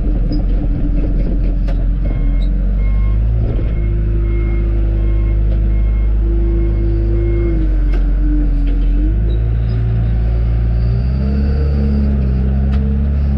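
John Deere 310G backhoe's diesel engine working under load, its pitch dipping and then revving up near the end. In the first half a backup alarm beeps about twice a second for several seconds.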